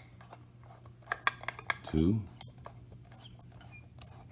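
Combination dial of a Sentry Safe Model 1250 clicking as it is spun counterclockwise: a quick run of small metallic clicks about a second in and a few more near the end.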